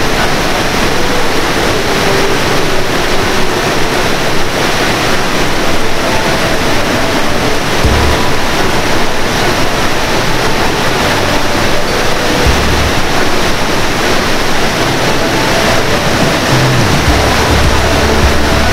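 River water pouring over a low concrete weir and tumbling down rocky rapids: a loud, steady rush. Background music plays over it, with occasional low notes.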